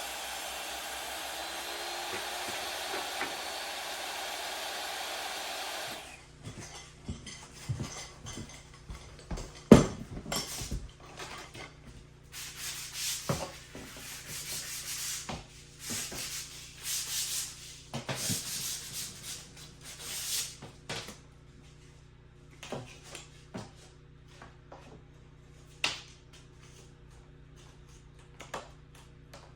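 A steady machine noise stops abruptly about six seconds in. It is followed by hand work on wood: scattered knocks and taps, one loud knock near ten seconds, and bursts of rubbing and scraping.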